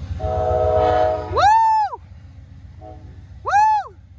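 A P42DC diesel locomotive's multi-chime air horn sounds a chord for about a second over the low rumble of the departing train. The horn is of a type the railfan takes for a K5LA. Two short, high whoops follow, each rising and then falling in pitch, about two seconds apart.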